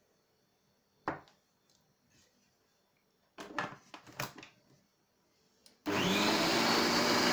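Electric food processor: a few plastic knocks as the lid is fitted, then the motor starts about six seconds in, spins up and runs steadily, churning a thick bulgur paste for çiğ köfte.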